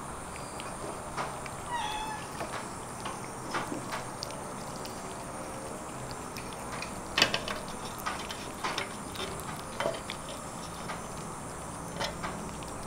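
Kittens eating grilled chicken from a plate: irregular wet chewing and licking clicks, with one short mew about two seconds in.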